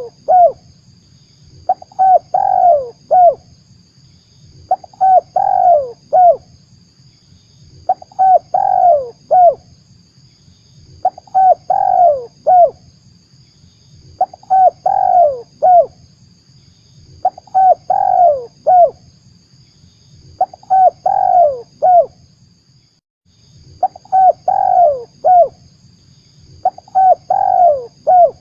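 Spotted dove cooing: the same short phrase of several notes, repeated about every three seconds. This is a lure call played to draw doves in for trapping.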